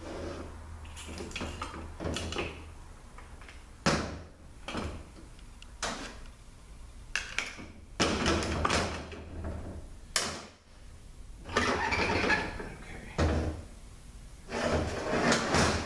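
Metal parts of a ZF6HP26 automatic transmission being worked apart by hand: irregular clanks and knocks, with scraping and rattling as clutch drums and the front section are pried and shifted with a screwdriver.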